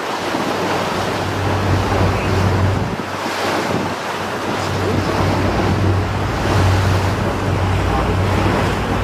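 Wind buffeting the microphone on a boat at sea, with rushing water and the steady low hum of the boat's engine beneath.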